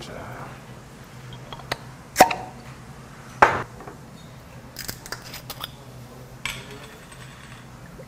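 Glass bottles and a glass knocked and clinked on a table, the two loudest knocks about two and three and a half seconds in, the first with a short ring. In the second half come small clicks and a brief crackle as the screw cap of a soju bottle is twisted open, over a low steady hum.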